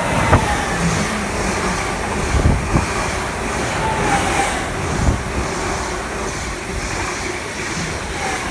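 A Stadler FLIRT passenger train in Greater Anglia livery passes close by at speed, with a steady rush of wheels on rail and air. A few sharp thumps come in the first five seconds.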